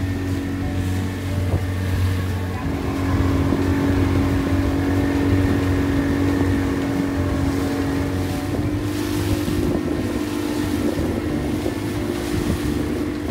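A small boat's motor running steadily under way, a low engine hum that shifts its note slightly about two and a half seconds in, with wind buffeting the microphone.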